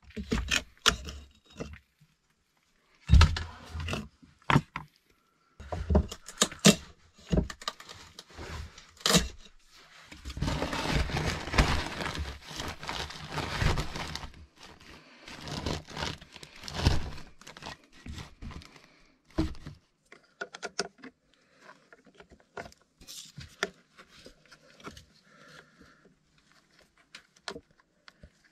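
Handling and work noises: irregular knocks and clatters, with about four seconds of continuous scraping about ten seconds in, then lighter scattered clicks and rustles.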